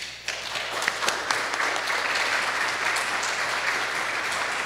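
Audience applauding: a steady round of clapping.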